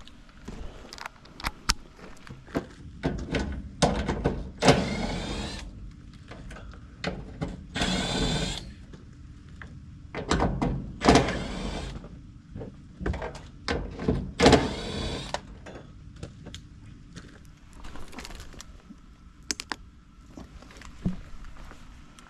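Dry leaves being pulled by hand out of the bottom of an outdoor heat pump unit: repeated rustling and crackling handfuls, four louder ones spread through, among many small clicks and knocks against the unit's metal cabinet.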